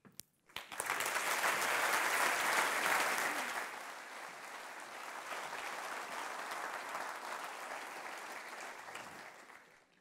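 Audience applauding, loudest for the first few seconds, then softer and dying away near the end.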